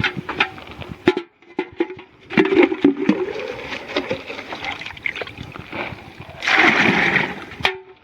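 Water sloshing and splashing as charcoal-laden water is scooped and poured with a bucket, with scattered knocks. A longer, louder splash comes about six and a half seconds in.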